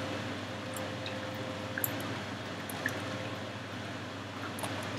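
Steady background hiss and low hum of a home voice-over recording, with a couple of faint clicks.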